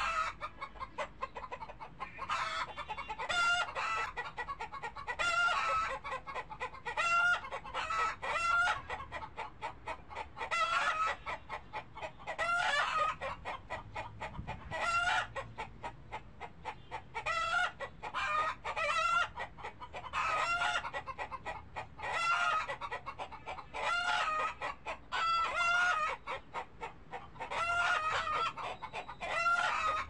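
Chickens clucking, short calls coming in clusters every second or two.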